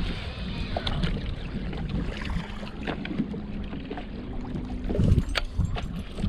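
Wind and water lapping around a small fishing boat, a steady low rumble, with a few small clicks and taps as fishing tackle is handled.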